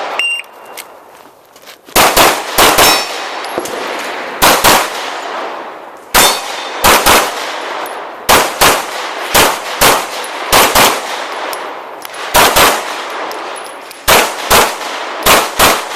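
Pistol fired rapidly during a practical-shooting stage: about two dozen loud shots, most in quick pairs a fraction of a second apart, with short pauses between the groups and echo after each shot.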